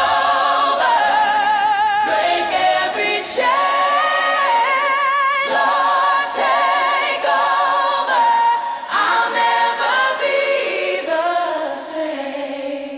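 Worship song singing with vibrato and layered vocal harmonies, almost unaccompanied, with no bass underneath.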